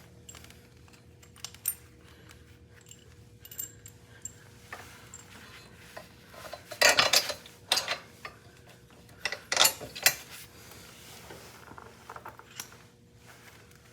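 Metal bolts, spacers and hand tools clinking and tapping while being handled, in scattered light clicks with two louder clusters about seven and ten seconds in.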